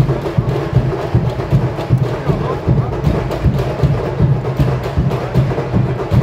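Samba school drum section playing a dense, driving samba rhythm: deep bass-drum beats with sharp clicking percussion strokes on top, and voices mixed in.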